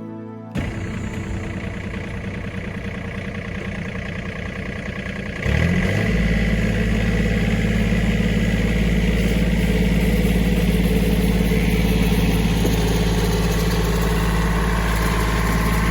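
A heavy engine running steadily, likely the earth-moving machine digging out the pond; about five and a half seconds in it revs up briefly and then holds a louder, deeper steady run.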